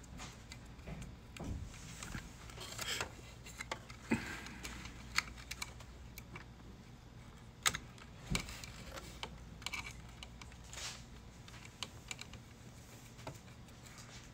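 Scattered light clicks, taps and small scrapes of a screwdriver and fingers handling plastic and metal parts inside an Epson EcoTank ET-8550 printer's carriage area, with a couple of sharper clicks around the middle.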